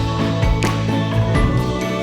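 Background music with steady sustained notes and a light, bell-like tinkling melody.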